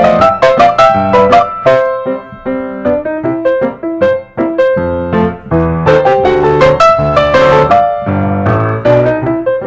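Background piano music, with notes struck in quick succession.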